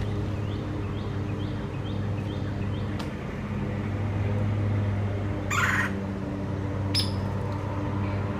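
Small birds chirping, short rising chirps repeating two or three times a second, with one louder, harsher call about five and a half seconds in. Under them a steady low mechanical hum runs throughout.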